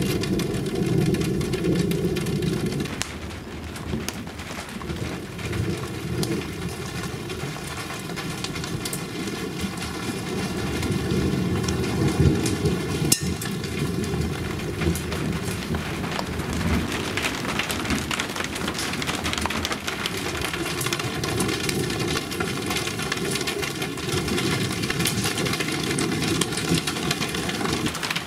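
Steady rain from a thunderstorm, with single drops striking close by as fine ticks, over a low rumble of thunder that is strongest for the first three seconds.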